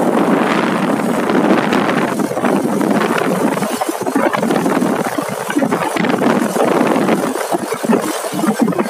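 Motorcycle on the move: wind rushing and buffeting over the microphone, with engine and road noise underneath.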